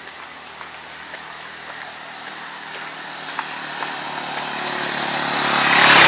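Motorcycle engine approaching, growing steadily louder and passing close by at the end.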